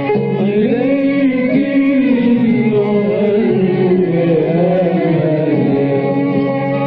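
Arabic hymn to the Virgin Mary: a sung melody gliding and bending in pitch over steady held notes of the instrumental accompaniment.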